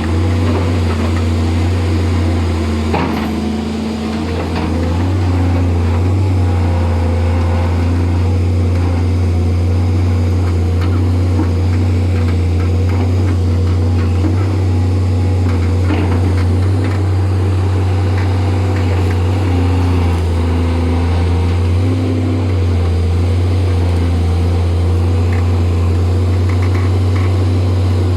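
Volvo excavator's diesel engine running steadily with a deep drone, easing off briefly about three to four seconds in, with a few sharp knocks over the top.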